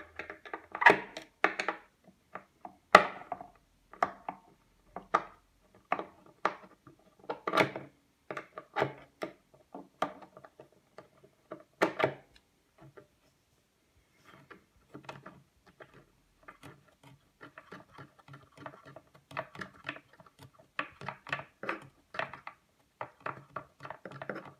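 Hand screwdriver undoing the screws that hold a miter saw to a wooden bench top: irregular clicks and knocks of metal on wood and plastic, with a few sharper knocks in the first half and a run of quicker, lighter clicking in the second half.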